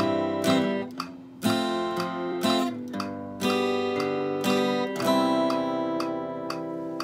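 Steel-string acoustic guitar playing a country basic pattern: single bass notes alternating with strummed chords in a steady rhythm, the chords ringing between strokes.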